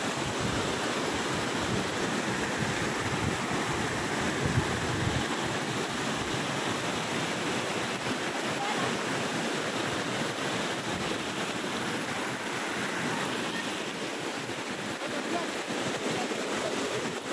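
Steady rush of flowing creek water running over rocks.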